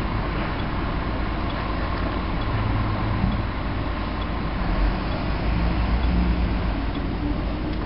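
Steady low rumble of idling vehicle engines heard from inside a car, with a brief knock about three seconds in.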